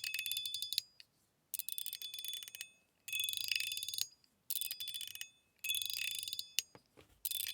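Stainless steel 01 EDC Mini Burger mechanical fidget slider worked back and forth, about five strokes. Each stroke is a quick run of clicks with a ringing metallic ping.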